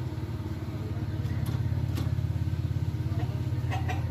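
A motor running steadily, a low hum with a fast, even pulse.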